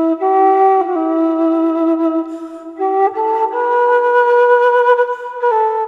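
Music: a slow melody of long held notes on a flute-like wind instrument, stepping between a few pitches.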